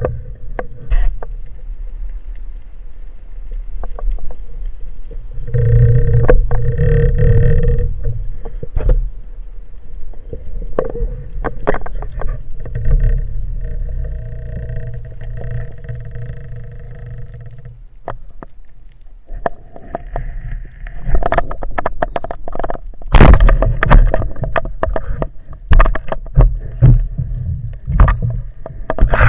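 Underwater sound during a spearfishing dive: a steady low rumble of water with many sharp clicks and knocks, which grow denser and louder near the end. A humming tone comes and goes twice.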